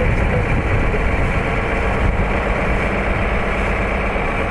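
Engine of a heavy military six-wheel truck running steadily as the truck moves slowly through shallow floodwater, with a continuous low hum.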